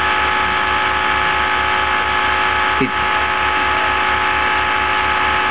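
Home-built Steorn Orbo-style magnet motor with an eight-magnet rotor spinning: a steady electric whine of several held tones over a low hum that pulses evenly several times a second.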